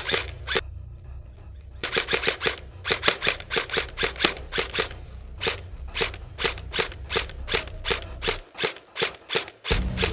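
Airsoft replica guns firing: a long string of sharp cracks, several a second, with a short pause about a second in.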